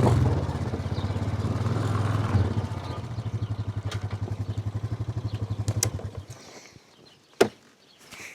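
A vehicle engine running with a low hum, falling into a slowing, pulsing beat as it is shut off about six seconds in. A single sharp knock follows about a second later.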